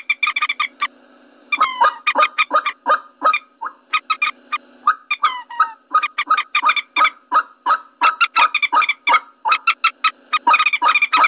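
Common moorhen calls from a bird-lure recording: a rapid series of short clucking notes, about four a second. There is a brief pause about a second in, and a few falling notes around two and five seconds in.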